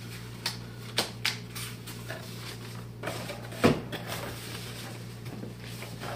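Cardboard boxes being handled on a wooden table: flaps folding and a few light knocks, with one sharper, louder knock a little past halfway, over a steady low hum.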